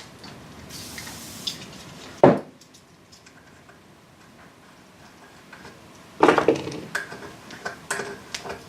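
Metal knocks and clinks as sheared bolt stubs are tapped out of a car's wiper linkage with a whole bolt: one sharp knock about two seconds in, then a cluster of knocks and clicks from about six seconds in.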